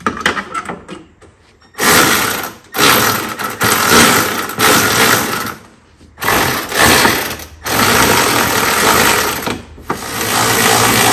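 A ratchet tool driving in bolts, in several runs of rapid ratcheting lasting one to two seconds each, starting about two seconds in.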